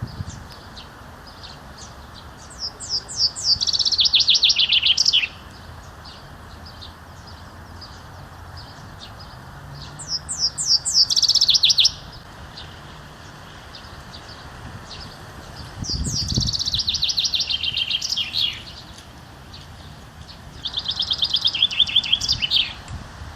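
A songbird singing the same short song four times, several seconds apart; each song is a quick run of repeated notes that steps down in pitch.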